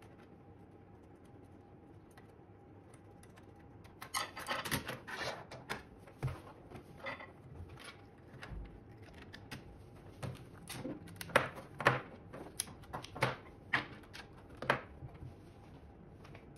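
Handling noise from wiring up a bench test setup: cable connectors, test leads and clamp-on current probes being plugged in and fitted, heard as irregular rustles, clicks and small knocks. It starts about four seconds in after faint room tone, and the sharpest clicks come in the second half.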